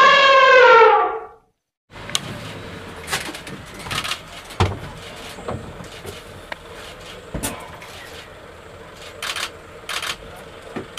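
An elephant trumpeting: one loud, brassy, slightly falling call that ends about a second in. After a brief silence comes a quieter outdoor hiss with scattered clicks and knocks.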